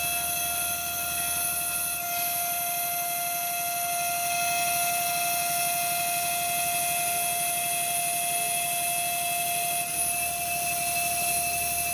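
CNC glass machining centre running, its spindle giving a steady high whine over an even hiss. The lower hum changes about two seconds in and again near ten seconds.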